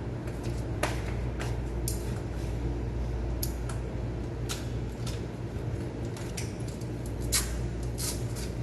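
Scattered sharp clicks and light knocks as bicycle accessories, the hand pump and then the saddle bag, are unclipped and taken off the frame, over a steady low hum.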